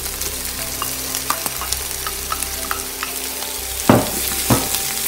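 Chicken pieces and freshly added celery sizzling in oil in a wok while a plastic slotted spatula stirs and turns them, with light scraping ticks and two louder knocks of the spatula against the pan about four seconds in.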